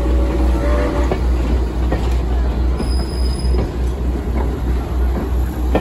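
Heritage wooden passenger coaches rolling past at low speed: a steady low rumble of wheels on rail with scattered clicks over the rail joints, and a wheel squeal that stops about a second in.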